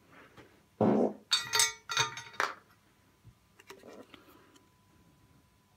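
A knock, then a few metallic clinks with a short ring as soldering tools are set down on the bench, followed by faint handling of the circuit board.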